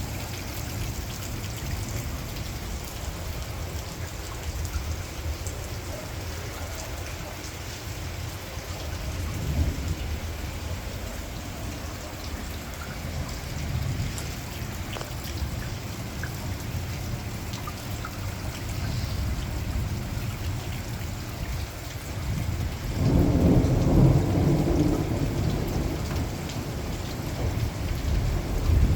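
Thunderstorm: steady rain with low rolling thunder throughout. A louder peal of thunder rumbles for a few seconds about three-quarters of the way through.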